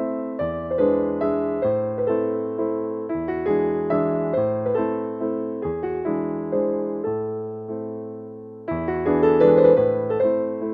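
Background piano music: soft chords over a slow bass line, with one chord left to fade before a louder chord comes in about nine seconds in.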